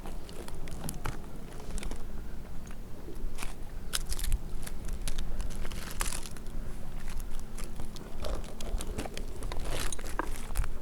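Irregular crunching, crackling and clicking right at a helmet-mounted microphone, with a steady low rumble underneath: a climber moving against dry bark and dead branches of a dead pine.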